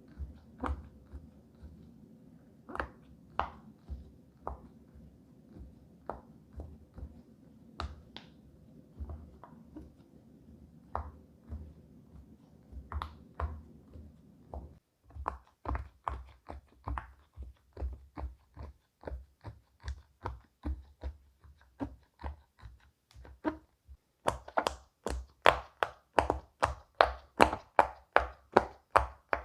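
Bubbles of a silicone pop-it fidget toy being pressed in one after another, each a short soft pop. The pops come slowly and quietly at first, then get denser, and from near the end they turn much louder and quicker, about four a second.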